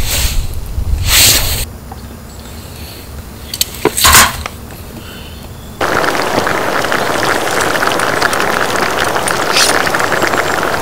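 A few short splashy handling noises as raw chicken pieces go into a stainless steel cup of broth and onion. About six seconds in, a steady, dense crackle of the broth simmering in the cup on a small camp stove begins.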